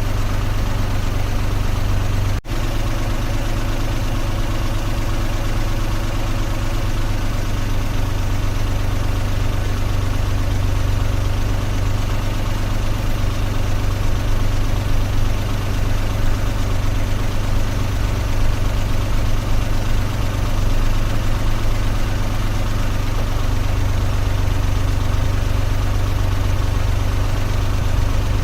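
Car engine running steadily with a low, even hum, briefly cutting out about two and a half seconds in.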